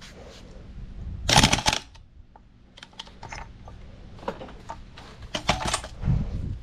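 Tools and metal parts being handled during reassembly. Rapid clicking and rattling comes in two bursts, the louder about a second in and another near the end, with scattered single clicks between.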